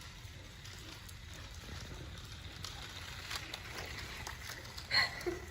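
Dogs moving about: faint clicking and scuffling, with a brief high-pitched sound near the end.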